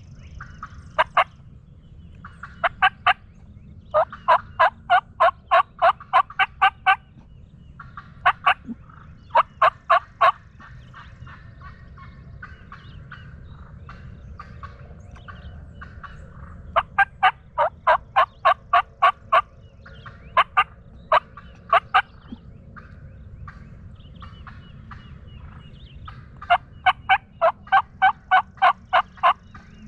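Hen turkey yelping: loud, sharp, evenly spaced yelps at about three a second, in several runs of two to ten notes with pauses between.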